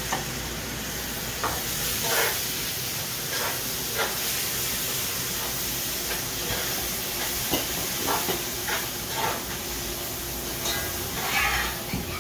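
Split peas (dal) frying in hot oil in an aluminium karahi, a steady sizzle with a metal spoon stirring and clinking against the pot now and then.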